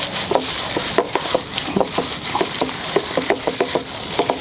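Plastic-gloved hand mixing and squeezing grated potato and chopped herbs in a ceramic bowl. A steady rustle runs throughout, with many short, quick sharp sounds as the mixture is worked against the bowl.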